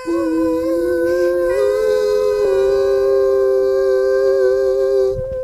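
Two singing voices holding the song's final note in harmony for about five seconds. The lower voice steps up slightly twice, and both stop shortly before the end.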